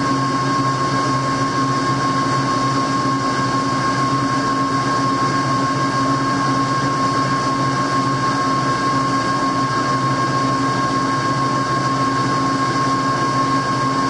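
Metal lathe running steadily at low speed with the power feed engaged while a two-wheel knurling tool rolls a knurl into a turning shaft: a constant mechanical hum with a steady high whine.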